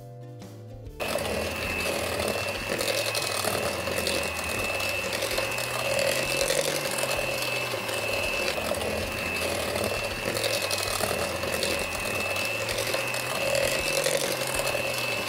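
Electric hand mixer switches on about a second in and runs steadily at low speed, its wire beaters churning flour mixture into creamed butter batter, with a steady high whine from the motor. Background music plays underneath.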